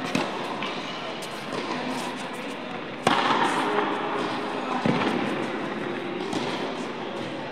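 Tennis ball struck back and forth by rackets in a rally, each hit a sharp pop that echoes around a large indoor hall. The loudest hits come about three seconds in and again about two seconds later.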